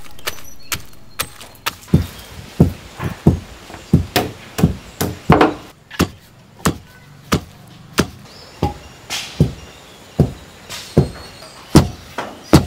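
Wooden pestle pounding jackfruit seeds in a mortar, crushing them to flour: sharp, evenly spaced thuds about one and a half a second. Faint background music fades out in the first couple of seconds.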